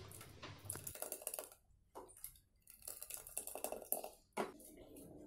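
A hand churner (mathani) spun in thick dal inside an aluminium pressure cooker, clicking rapidly against the pot in two spells, with a couple of single knocks of utensil on metal.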